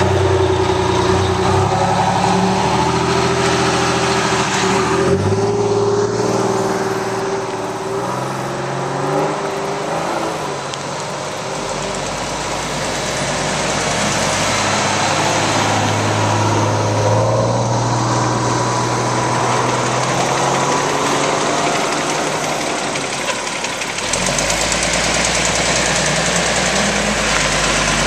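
Fire truck engines idling close by, with a steady low hum whose pitch shifts a few times.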